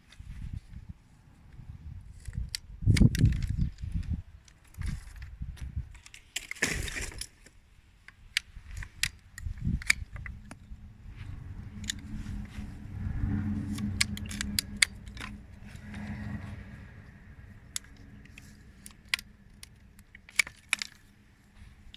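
Ratchet pruning shears being worked: a run of sharp metallic clicks, a crunching snap about a third of the way in, and heavy handling bumps. A low steady hum runs under it for several seconds in the middle.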